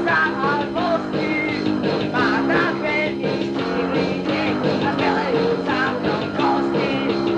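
Lo-fi punk rock band playing, recorded on a dictaphone.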